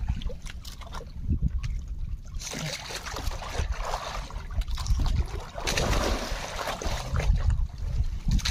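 Water sloshing and splashing around a small fishing boat at sea, over a constant low rumble. The splashing grows louder about two and a half seconds in.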